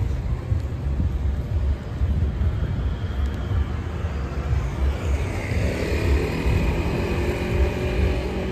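A double-decker bus's diesel engine running as it pulls away and comes closer, over a steady low rumble. About halfway through, a higher engine whine joins in.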